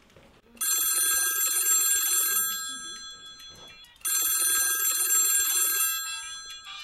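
Mobile phone ringing: a high ringtone sounds twice, each ring lasting about two seconds, with a short gap between.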